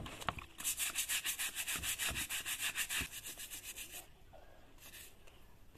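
Small brush scrubbing a wet sandal in quick, even back-and-forth strokes, several a second, pausing briefly just after the start and stopping about four seconds in, with one more short stroke near the end.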